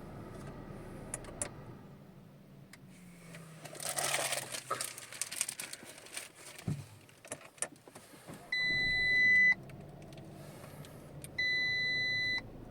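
Two steady electronic warning beeps from the car's chime, each about a second long and about three seconds apart, after a stretch of rustling with a few clicks and knocks. A low hum slides down in pitch and fades in the first few seconds.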